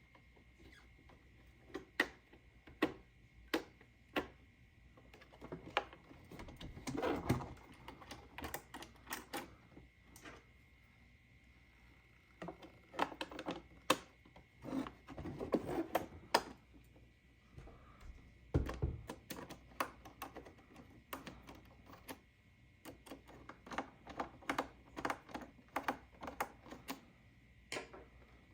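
Irregular plastic clicks, taps and small knocks, sometimes in quick clusters, from handling and operating a toy claw crane game machine. A faint steady high-pitched tone runs underneath.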